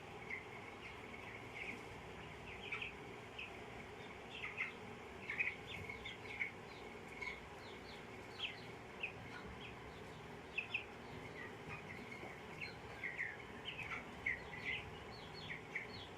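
Chicks peeping: many short, high cheeps, several a second and irregular, some overlapping, over a faint steady background hum.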